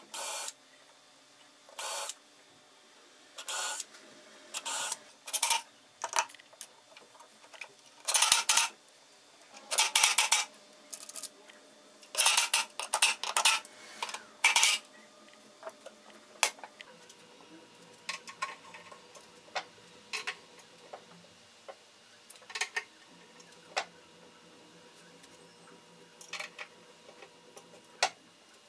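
Cordless drill driving screws into cabinet hinges in short bursts, many in quick succession through the first half. After that come only lighter clicks and taps.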